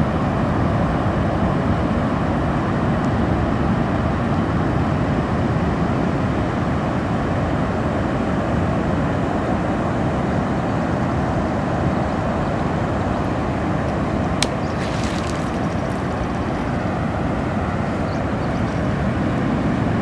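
Steady wash of surf breaking on the offshore reef, with one sharp click about fourteen seconds in.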